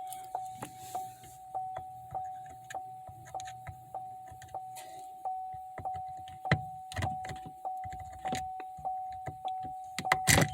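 A car's warning chime repeating about three times a second at one steady pitch, with scattered sharp metal clicks and taps as a small pin in the shifter is pried at with a screwdriver; the loudest knock comes near the end.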